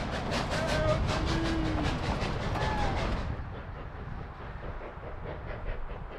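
K-36 narrow-gauge steam locomotive working hard upgrade, its exhaust beating in a quick, even rhythm under the rumble of the passing coaches. About three seconds in, the sound drops and turns duller and more distant, the exhaust beats still going.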